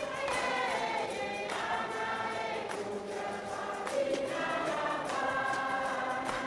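Choral music: a choir singing long held chords that change every second or so.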